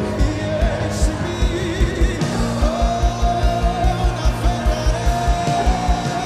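Live worship band with a drum kit and keyboard, a steady kick-drum beat that speeds up to about four beats a second about two seconds in, under singing with one long held note.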